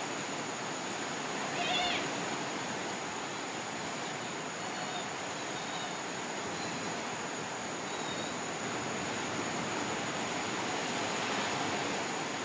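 Steady wash of surf with a thin, steady high whine over it; about two seconds in, a white-faced capuchin gives a short, high, wavering mew-like call, followed by a few faint chirps.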